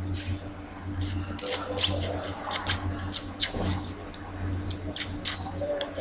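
A man sucking air through his teeth again and again to clean them, a quick run of short squeaky sucks, several a second, starting about a second in.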